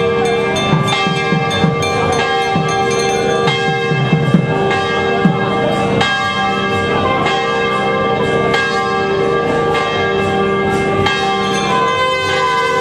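Hindu temple bells rung continuously and rapidly, the strokes overlapping so that their ringing tones hold steady throughout.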